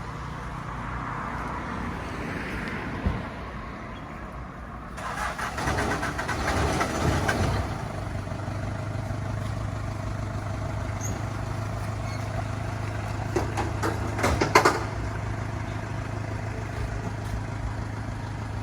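A vehicle engine starts about five seconds in and settles into a steady, low idle. A few sharp clicks come near the end.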